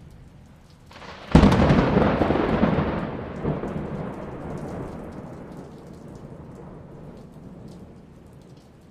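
A thunderclap over steady rain: a sudden loud crack about a second and a half in, then a rumble that fades away slowly over several seconds while the rain continues.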